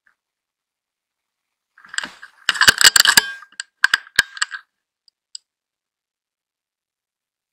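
A quick run of sharp metallic clicks and rattles lasting about two and a half seconds, from a hunting rifle being cocked and reloaded between shots.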